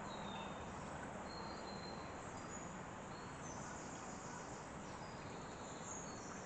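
Faint, steady outdoor background hiss with scattered short, thin, high bird chirps.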